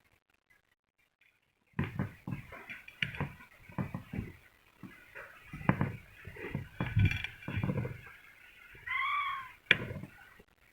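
Knife cutting through a cake on a plate: after a brief silence, a run of irregular knocks, taps and scrapes. Near the end comes one short squeak that rises and falls in pitch, followed by a single sharp knock.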